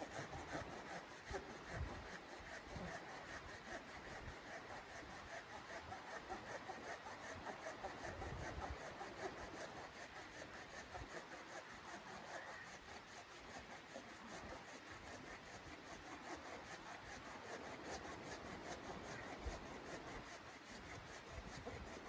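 Folding hand saw cutting through a log, with steady back-and-forth rasping strokes of the blade in the wood.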